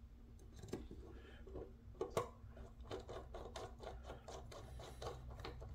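Faint run of light, quick metal clicks and scraping from a small bit driver turning the last screw of a folding knife.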